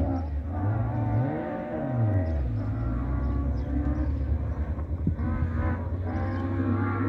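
Rally car engine running hard on a gravel stage. Its note climbs and drops back about two seconds in, then holds steady at high revs.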